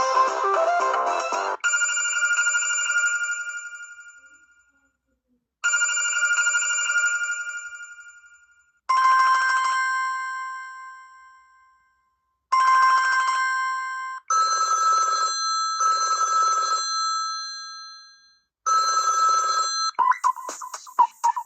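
Samsung Galaxy Young (Telstra T3020) ringtones played one after another. A musical tone ends about a second and a half in. Then come bell-like electronic rings, each fading away: one tone twice, a lower tone twice with the second cut short, and a quick double ring repeated. A new rhythmic musical ringtone starts near the end.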